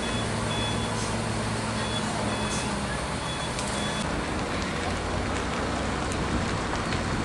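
Heavy truck engine running with short, high electronic beeps of a vehicle warning alarm repeating irregularly. About three seconds in the engine hum drops away and a steady rushing noise of wind and distant traffic remains.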